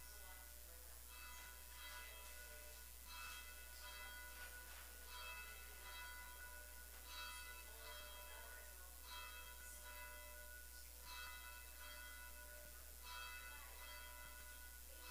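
Church bells ringing faintly, with a new stroke about every second and each stroke's tone ringing on.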